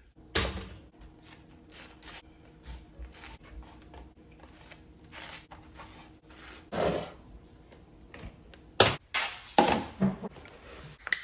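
Kitchen handling sounds: a run of light clicks and knocks, like drawers, cupboards and dishes being handled while toast is made, with a few louder knocks about half a second in and again around the last few seconds. A faint steady hum lies underneath.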